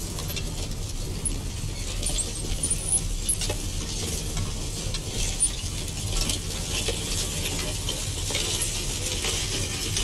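Light jingling and clinking of harness chains and the steel plough as a pair of draught horses plough a furrow, with scattered clicks over a steady low hum and crackle from an old film soundtrack.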